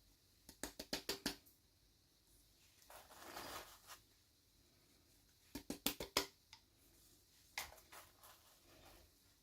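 Hands handling small plastic packaging during an unboxing: two quick flurries of sharp crinkles and clicks, with a softer rustle between them and a few lighter clicks after.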